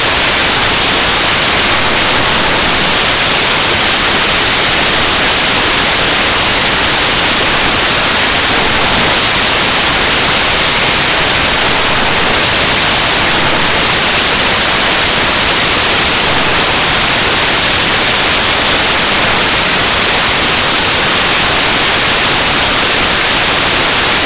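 Loud, steady hiss of static that does not change, with no speech coming through it.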